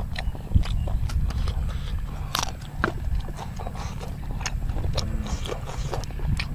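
Close-up chewing of seafood, with irregular wet mouth clicks and smacks, over a steady low rumble.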